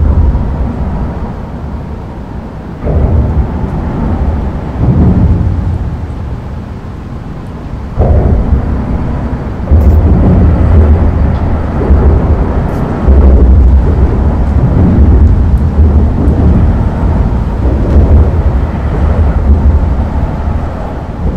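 Traffic crossing a busy concrete road bridge, heard from beneath the deck: a deep rumble that swells and fades as vehicles pass overhead, with sudden surges about 3, 8 and 10 seconds in. From about 10 seconds on the rumble is nearly continuous as more vehicles cross.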